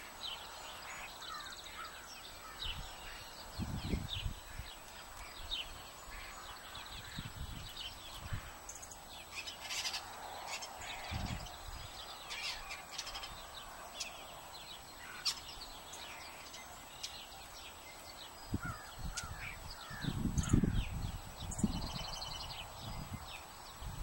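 Small songbirds chirping and calling in quick, scattered notes, with a few harsher calls among them. A few low rumbles come and go, the loudest about twenty seconds in.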